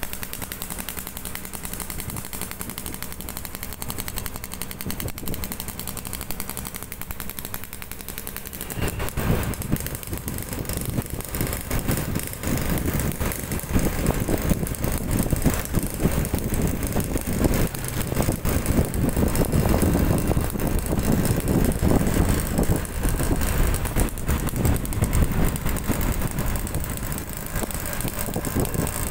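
Suzuki Satria 120 two-stroke single with a hollowed-out roadrace exhaust, running at low revs for the first nine seconds or so, then riding off under throttle, its exhaust note louder with a rapid crackle.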